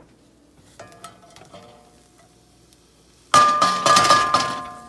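Diced raw bacon scraped off a plastic cutting board into a hot cast iron skillet and starting to sizzle, with the board's edge knocking against the pan several times and each knock ringing. A few faint clicks come first, then the sizzle and knocks start suddenly about three and a half seconds in and fade away.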